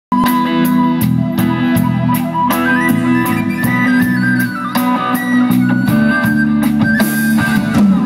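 A live rock band plays at a soundcheck: electric guitar and drums with an even cymbal beat under held low notes, and a sustained lead melody that climbs step by step and comes back down.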